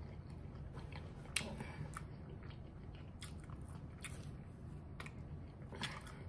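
Close-miked chewing of French fries: faint, wet mouth smacks and small clicks at irregular intervals, one sharper click about a second and a half in.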